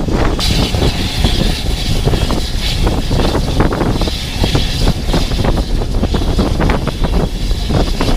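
A steam-hauled passenger train running, heard from beside its coaches: a steady low rumble with irregular clatter of wheels over the track and a hiss of rushing air. The train is hauled by BR Standard Class 5 4-6-0 No. 73082 Camelot.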